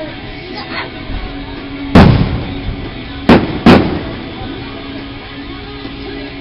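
Fireworks shells bursting in three sharp bangs: one about two seconds in with a trailing rumble, then two close together a second and a half later. Background music plays throughout.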